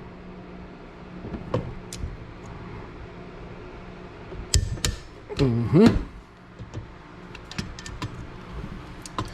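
Click-type torque wrench tightening the Honda CR500's cylinder nuts, giving several sharp clicks as it reaches its 29 ft-lb setting, with small ratchet ticks near the end. A brief louder pitched sound rises and falls about halfway, over a steady low hum.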